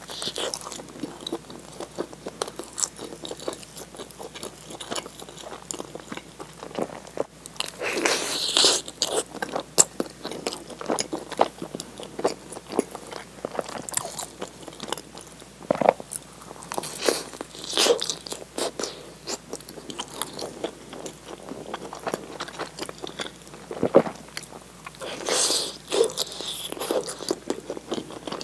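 Close-miked biting and chewing of soft bread with a melted cheese filling: wet mouth smacks and small crunches, with louder bites every several seconds.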